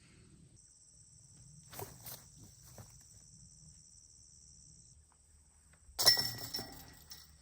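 Insects trilling steadily in high thin tones in an open field, with a few faint clicks. About six seconds in comes a sharp, loud metallic clank that rings briefly and dies away.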